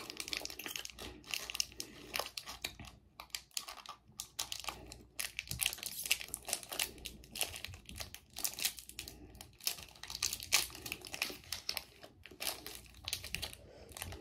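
A plastic candy-bar wrapper crinkling and tearing as it is picked at and pulled open by hand, in a rapid, irregular run of crackles.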